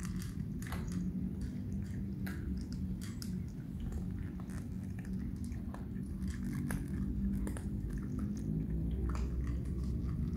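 Several cats chewing dry kibble: many small, irregular crunches over a low steady rumble.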